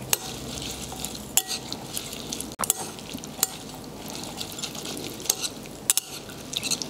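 Chopsticks tossing dressed green onion salad in a ceramic bowl. A soft, steady rustle of the wet greens is broken by about six sharp clinks of chopsticks against the bowl, some ringing briefly.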